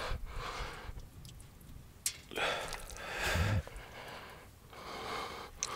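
A person breathing close to the microphone: three noisy breaths about two and a half seconds apart, the middle one ending in a short low hum. A few faint light clicks fall between them.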